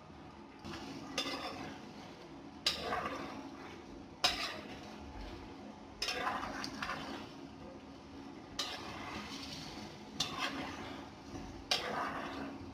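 A metal spoon stirring chicken and potatoes in a nonstick frying pan: a sharp clack against the pan about every second and a half, each followed by scraping through the frying food.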